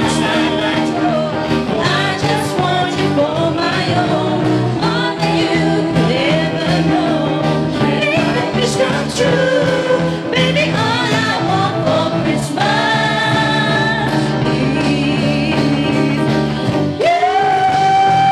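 A live pop band playing a Christmas song, with singers over keyboard, electric guitar and drums. Near the end a single long high note comes in and is held.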